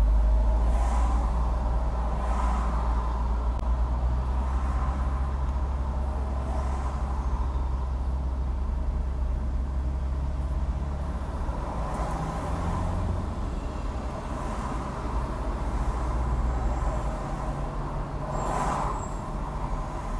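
Road and traffic noise from a car driving in traffic: a steady low rumble from the car itself, with other vehicles swishing past now and then. The deep rumble eases off about two-thirds of the way through.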